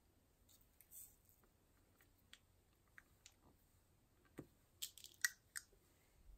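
Near-quiet room with a few faint, light clicks and ticks, then a quick cluster of sharper clicks about five seconds in.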